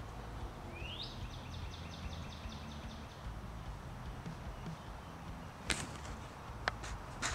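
A bird sings once: a rising whistled note that runs into a fast series of about ten repeated high notes, lasting about two seconds. A steady low rumble lies underneath, and a few sharp clicks come near the end.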